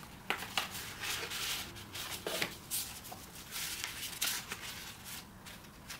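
Paper rustling as stiff cards are slid out of a Louis Vuitton paper envelope by gloved hands: a string of short, irregular scrapes and crinkles.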